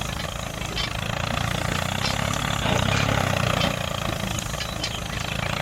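Small mini-tractor engine running steadily, with a few faint clicks over it.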